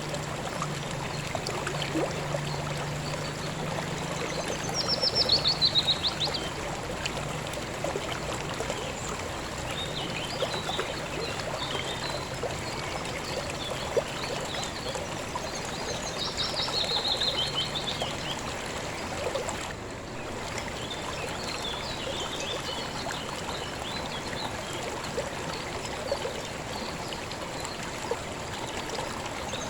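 Steady rushing of a river's water flow, with a small bird singing over it: a quick descending trill about five seconds in and again around seventeen seconds, the loudest sounds here, plus a few fainter chirps.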